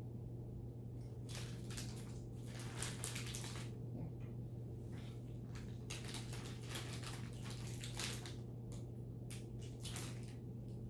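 Pet monkeys rummaging, with irregular rustling and crinkling over a steady low hum.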